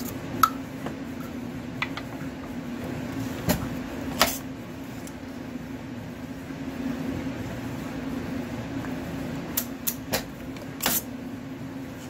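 Scattered clicks and knocks of a shotgun hull and the parts of a Lee Load-All II shotshell reloading press being handled, about eight in all, a couple of them a little drawn out, over a steady low hum.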